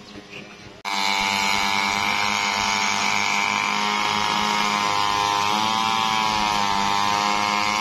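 Petrol brush cutters (string trimmers) running at high revs: a loud, steady buzzing whine that starts abruptly about a second in and wavers slightly in pitch near the end as the throttle shifts.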